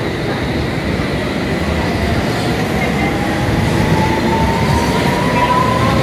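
Electric train running with a steady rumble, its motor whine rising in pitch from about two seconds in as it picks up speed.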